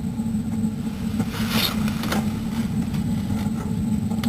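Main gas burner of a Suburban direct-vent furnace, which has no blower fan, burning with a steady low rumble of flame. A brief scrape comes about a second and a half in.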